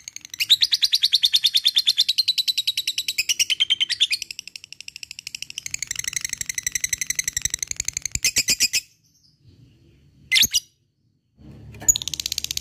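Lovebird ngekek: long runs of very rapid, sharp, high-pitched chattering notes, many per second. The runs break off briefly twice, stop almost completely for about a second after a short burst near the ten-second mark, then start again near the end.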